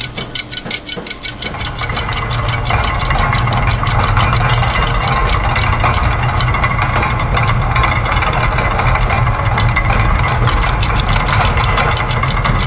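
Layered loops of machine sounds (gears, ratchets, clockwork and a sewing machine) mixed into one dense mechanical texture: rapid, even ticking at several clicks a second over a steady low rumble, growing fuller and louder about two seconds in.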